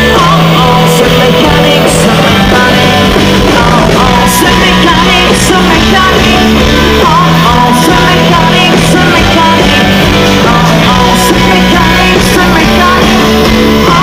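Live rock band playing loud: electric guitar, bass, drums and a singer. The bass steps back and forth between two notes, and sharp drum accents land about once a second.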